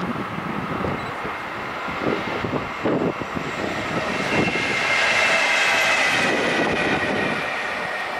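Red DB electric locomotive passing alone on the far track, its running noise building to a peak about five seconds in with a steady high whine over the rush of the wheels.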